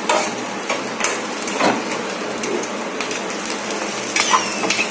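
Onions, sweet corn and curry leaves frying in oil in a kadai: a steady sizzle, with a steel spatula stirring and scraping through the mix and knocking against the pan a few times.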